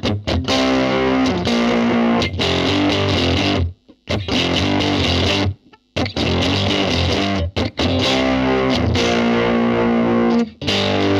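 Overdriven electric guitar through a Marshall JTM1C 1-watt valve combo, its volume pushed up for crunch, playing chord phrases that stop briefly about four and six seconds in and again shortly before the end.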